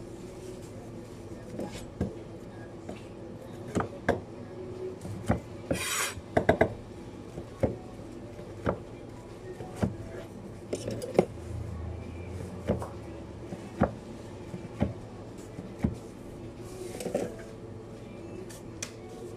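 Chef's knife slicing through maki sushi rolls, each cut ending in a sharp tap on the board, about once a second, with a brief hiss about six seconds in.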